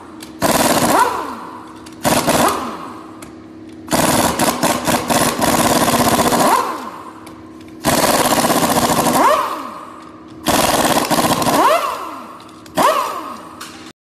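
Impact wrench hammering out the ring gear bolts of a limited-slip differential carrier, in about six bursts of one to three seconds, each spinning up and winding down.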